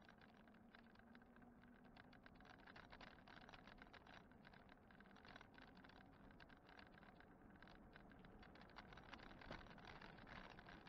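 Faint, irregular rattling and ticking of a moving e-bike and its mounted camera as it rolls along a paved road, with a faint steady hum in the first couple of seconds.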